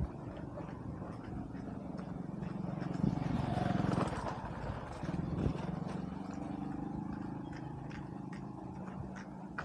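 A small engine running steadily, swelling for a moment about three to four seconds in, with footsteps on a wet dirt road.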